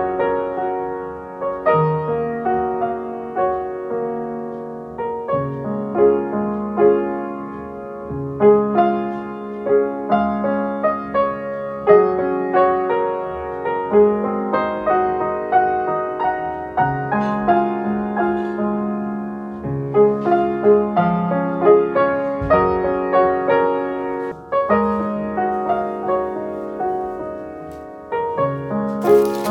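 Slow solo piano music: single notes and chords struck and left to ring out.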